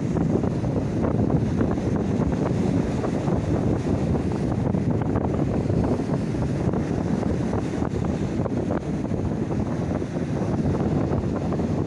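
Mediterranean Sea waves washing steadily, with wind rumbling on the microphone.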